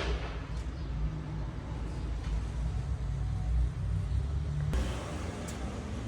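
Brastemp washing machine running with a strange low rumble from underneath the machine, with a few light clicks. About three-quarters of the way through, a steady hiss joins the rumble.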